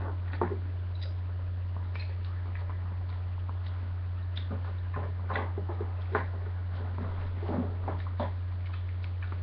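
Faint, scattered clicks and rustles of hands handling and fitting together the metal and plastic parts of a Beyblade spinning top, over a steady low hum.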